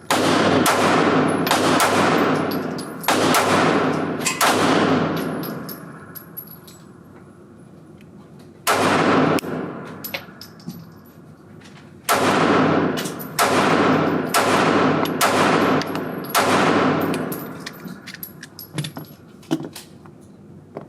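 Springfield Hellcat 9mm pistol fired in slow aimed shots, each crack ringing out in a reverberant range. About five shots come roughly a second apart, then a single shot after a pause, then another string of about five.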